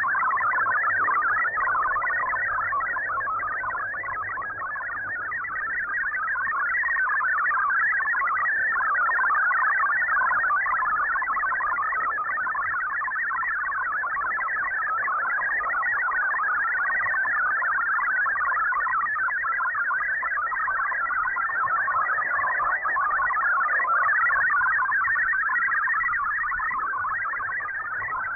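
MFSK digital text signal from a shortwave radio broadcast: a rapid, continuous warble of tones hopping about in pitch, swelling and dipping slightly in loudness over a faint low hum. The signal is clean enough to decode to text almost perfectly.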